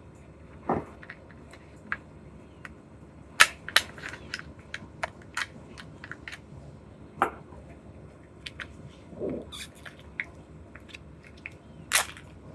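Irregular sharp clicks, snaps and crackles of packaging being handled and opened, a dozen or so spread out, the loudest about three and a half seconds in and near the end.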